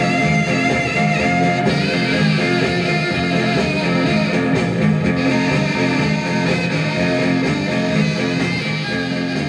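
Guitar-led music played from a 45 rpm record on a 1956 RCA 7-HF-45 Orthophonic record player, through its tube amplifier and woofer and tweeter speakers with the lid closed.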